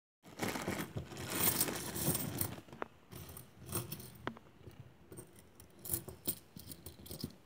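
A plastic coin bag rustling as a bag of cupronickel 50p coins is tipped out onto a table, with the coins sliding and clinking out for the first couple of seconds. After that come separate light clinks of the coins knocking together as they are spread and stacked by hand.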